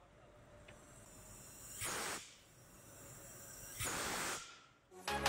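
Steam hissing out of a boiler safety-valve line during an online safety valve test, in two short bursts about two seconds apart, with a faint hiss between.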